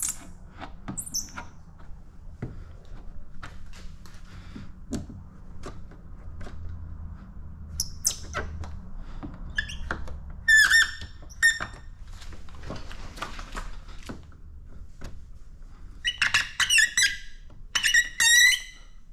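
A squeegee squeaking in short high bursts as it is worked over wet paint protection film, with scattered light clicks and taps between the strokes. Most of the squeaks come in the second half, over a faint steady hum.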